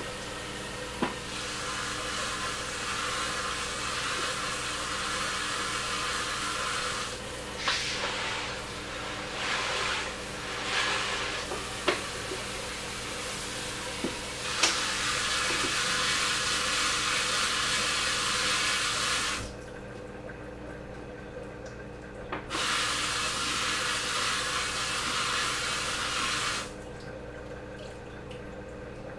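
Kitchen sink sprayer running water through a reusable coffee filter full of decapsulated brine shrimp eggs, rinsing the bleach off them. The spray comes in several spells, stopping briefly a few times, with small knocks and clinks in the gaps.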